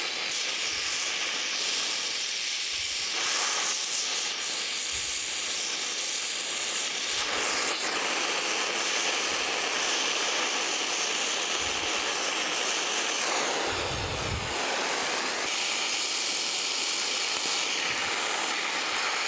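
Gas brazing torch flame hissing steadily as it heats a cast iron casting during brazing, with a few soft low bumps, the strongest about two-thirds of the way through.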